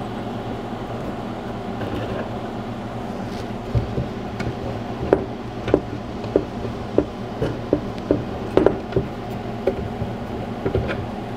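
Steel nuts and washers clicking and clinking as they are handled and threaded onto anchor bolts through a plywood template. The short clicks come roughly every half second, starting a few seconds in, over a steady background hum.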